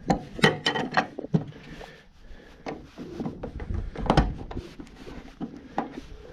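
A series of sharp wooden and mechanical knocks and clunks, like things being handled, opened and shut: a quick cluster in the first second or so and another about four seconds in.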